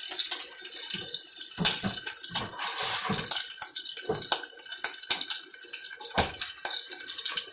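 Bacon sizzling and crackling in a frying pan, with a few low knocks from handling cookware about one to three seconds in and again near the end.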